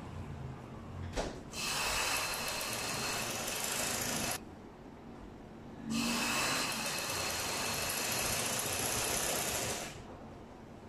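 Motorised black domestic sewing machine stitching fabric in two runs of a few seconds each, with a pause of about a second and a half between them; a single click just before the first run.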